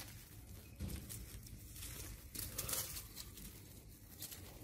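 Scattered rustling and crinkling of leaves and twigs as two young monkeys climb about in a small potted tree, a little louder about halfway through.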